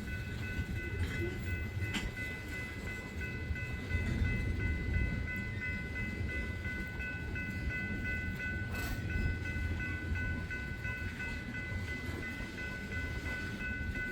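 Freight train cars rolling past in a steady low rumble, a little louder about four seconds in. Steady high-pitched tones sit on top of the rumble throughout.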